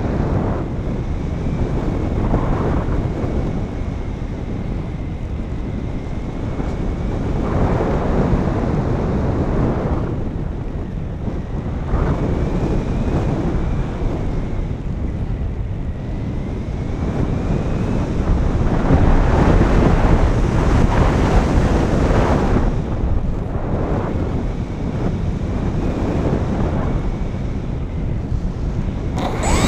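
Wind rushing over the onboard camera's microphone of an RC FPV plane in flight, swelling and easing every few seconds, with a faint steady motor whine underneath.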